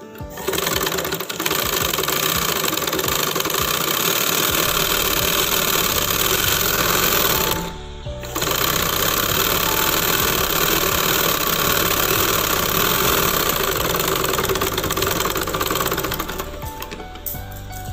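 Domestic sewing machine running steadily as it stitches down the folded edge of a bias strip, stopping briefly about eight seconds in, then running again until it stops about sixteen seconds in.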